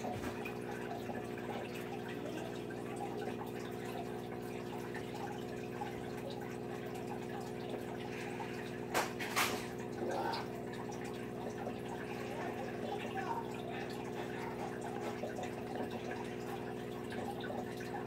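Aquarium water trickling and dripping over a steady hum, with two sharp clicks about halfway through.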